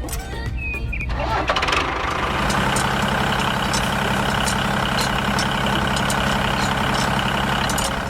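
Small engine of a DIY mini tractor starting up about two seconds in, then running at a steady speed.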